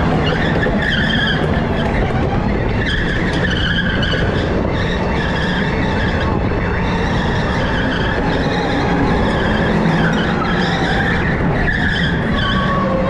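Electric go-kart tyres squealing again and again as the kart slides through the corners of a polished indoor track, each squeal lasting about a second, over a steady loud rush of kart and motor noise.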